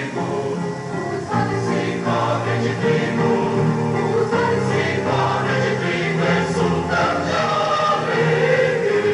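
Church choir singing a hymn, sustained held notes in several voices.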